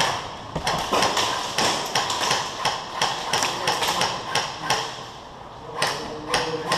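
Airsoft guns firing single shots: a string of sharp clacks, about three a second, that slackens for a moment about five seconds in and then picks up again.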